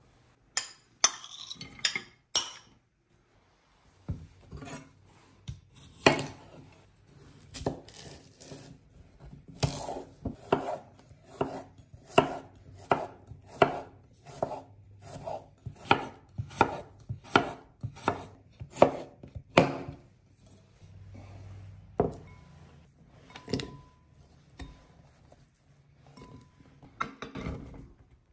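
Kitchen knife chopping cucumber, a steady run of cuts at about two a second, then a few slower, scattered cuts near the end.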